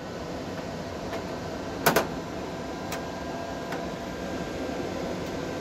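Steady fan hum with a few sharp clicks and taps from hands fitting the inverter's plastic air-filter cover; the loudest is a double click about two seconds in.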